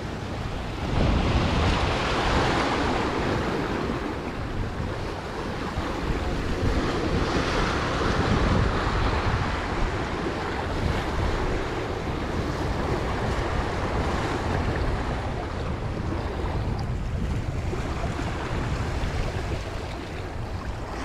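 Sea waves washing and breaking against jetty rocks, swelling louder about a second in and again around seven seconds, with wind rumbling on the microphone.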